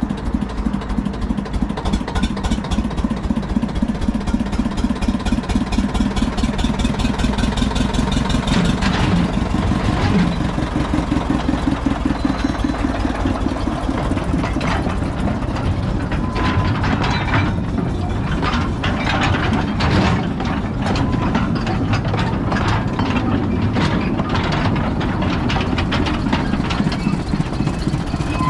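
Small Motor Rail Simplex narrow-gauge locomotive's 48 hp diesel engine running steadily with a fast even beat, with scattered knocks and clanks in the middle stretch.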